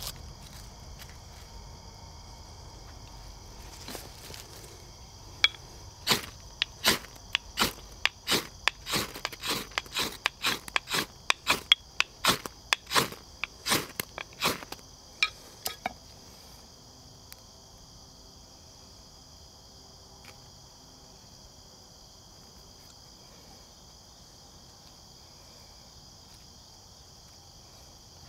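Steady, high-pitched buzzing of an insect chorus, with a run of about twenty sharp cracks from about six to sixteen seconds in, coming closest together in the middle; the cracks are the loudest sound.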